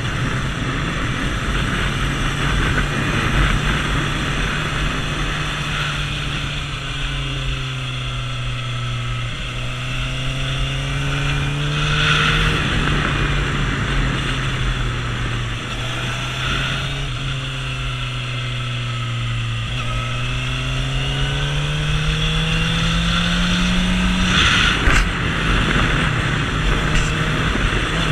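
Suzuki GSX-R750 inline-four engine running as the motorcycle rides through a run of bends. The revs sink and climb again several times, with a sudden drop near the end, over a steady rush of wind noise.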